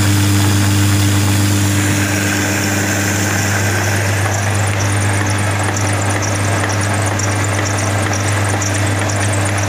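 Electric atta chakki (stone flour mill) running steadily while grinding rice into flour: a loud, constant low hum from its electric motor with a hissing grinding noise over it. About four seconds in, a rapid high fluttering rasp joins the hum.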